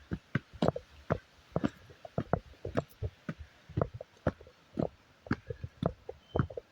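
Footsteps of a hiker walking along a forest trail, about two steps a second, each a short crunching thud, mixed with low bumps of the handheld recorder jostling as he walks.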